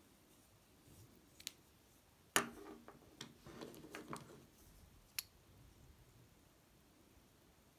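Two wooden slimline pens handled and laid on a wooden bench: a couple of light clicks, then a sharp knock and a short clatter of the pens against each other and the wood, and one last click.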